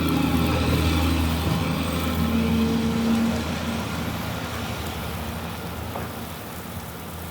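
Electric soft wash pump on a pressure washing skid running on 24 volts, a steady low hum with a hiss over it, easing off somewhat after about three and a half seconds.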